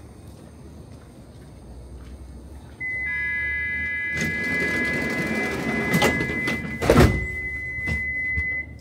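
Stockholm metro train doors closing. A steady high warning tone comes in about three seconds in and holds for nearly six seconds, while the sliding doors run shut and close with a heavy thump about seven seconds in.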